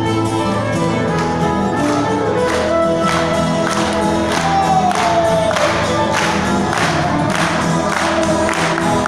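Live acoustic guitar and violin playing together, the violin sliding down in pitch about five seconds in, over a steady beat of sharp strokes about twice a second.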